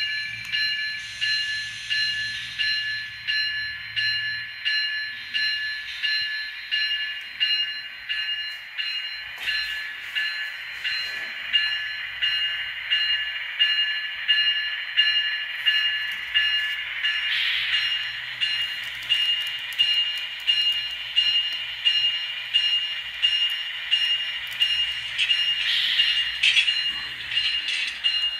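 A model diesel locomotive's DCC sound decoder ringing its locomotive bell through the model's small speaker, one strike about every second, steady throughout. A faint low hum sits underneath.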